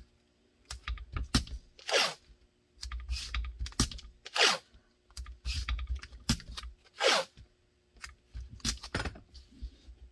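Blue painter's tape being pulled, torn and pressed down by hand, with crinkling, tapping and three louder rips about two and a half seconds apart.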